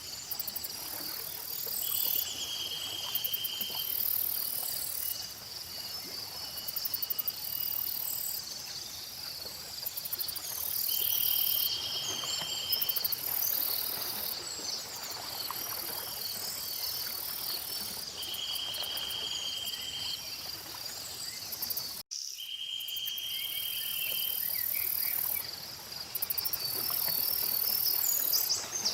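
Layered insect and bird ambience: a steady high-pitched chorus of crickets and other insects, scattered bird chirps, and a buzzy trill about two seconds long that comes back every several seconds. The sound drops out for an instant about two-thirds of the way through, at a splice in the loop.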